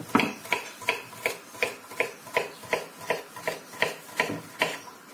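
Knife dicing zucchini on a wooden cutting board: an even run of chops, about three a second.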